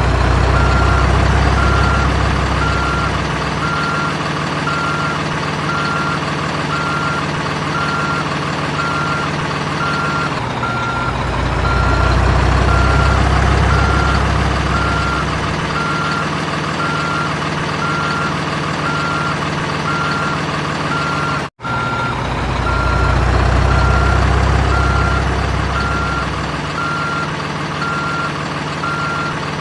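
Electronic sound effects from a toy RC excavator: steady reversing beeps at about one a second over a simulated engine rumble that swells up three times. The sound cuts out for a split second about two-thirds of the way through.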